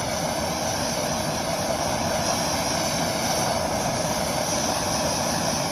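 Small blowtorch burning with a steady hiss, its flame held on the cut end of a nylon starter rope to melt it so it won't fray.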